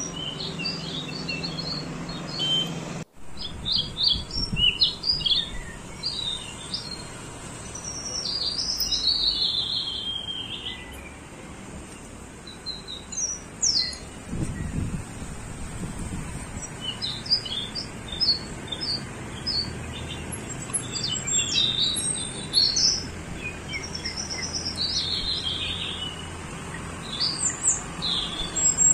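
Several birds chirping and singing, short repeated notes and quick falling whistles over a steady outdoor background hum. The sound cuts out for an instant about three seconds in.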